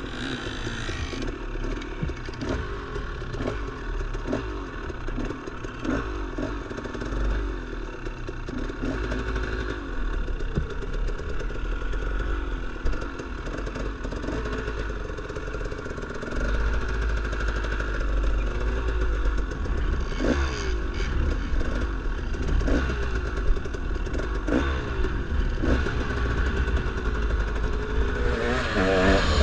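Dirt bike engine running on a rough trail, its pitch rising and falling with the throttle, with scattered clattering knocks over rocky ground.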